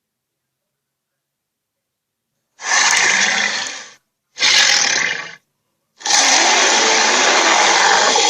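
Three harsh, noisy blasts with dead silence between them, starting about two and a half seconds in; the first two last about a second each and the third, from about six seconds in, holds steady for over three seconds.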